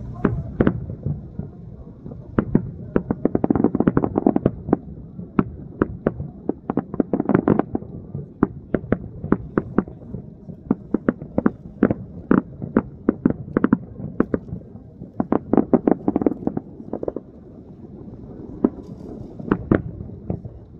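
A rapid, irregular series of sharp explosive bangs and cracks, often two or three a second, over a low rumbling background.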